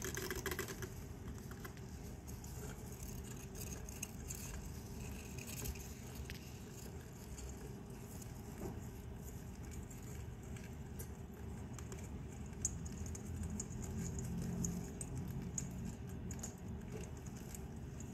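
Hamster licking the metal spout of a water bottle, making quick, irregular small metallic ticks and clicks.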